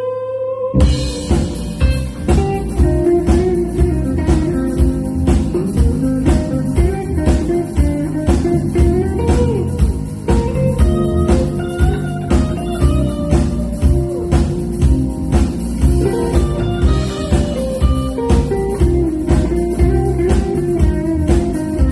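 Live band playing a jazz-funk instrumental with guitar to the fore over a drum kit's steady beat. Less than a second in, the whole band stops briefly, then comes back in together.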